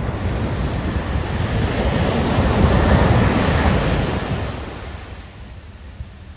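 A shorebreak wave crashing and washing up onto a sand beach, building to a peak about halfway through and fading over the next couple of seconds. Wind rumbles on the microphone underneath.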